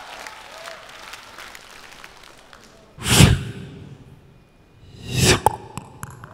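Human beatbox breath effects through microphones: two loud, breathy whooshes about two seconds apart, each under half a second long, between stretches of faint crowd noise.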